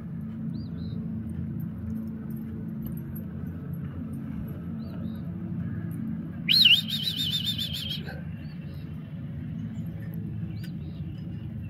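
Birds chirping, a few faint short chirps and one loud warbling trill about halfway through, over a steady low rumble.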